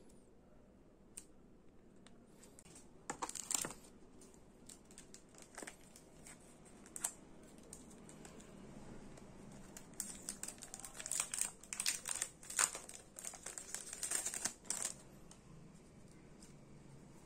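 Packaging crinkling and rustling as it is handled at close range, in two spells of crackling: a short one about three seconds in and a longer, louder one from about ten to fifteen seconds in.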